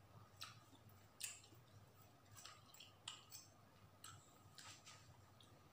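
Kitchen knife cutting through watermelon flesh and rind: a series of faint, crisp cuts, about one a second.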